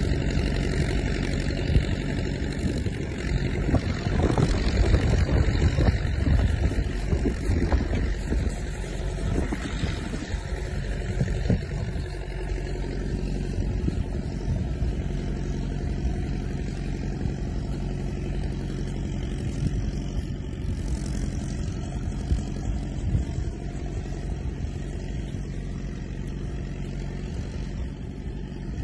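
Engine of the vehicle towing a train of loaded freight sleighs, running steadily under load as the sleighs slide by on snow, with a louder, rougher stretch of noise about four to twelve seconds in that fades as the train moves off.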